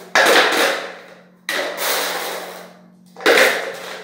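Small stones dropped a few at a time into a clear plastic PET bottle, clattering against the plastic. There are three drops, each rattle dying away within about a second.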